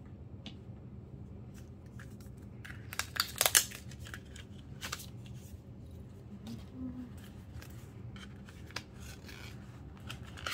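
Album packaging being opened by hand: scattered rustling, clicking and tearing of plastic and paper, loudest in a burst about three seconds in.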